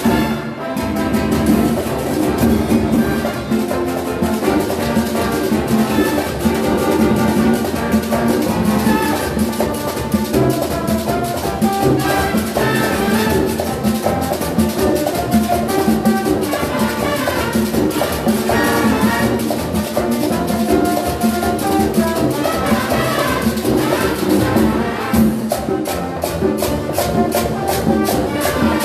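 A Latin big band playing live: brass section with trumpets over percussion, in a salsa-style groove.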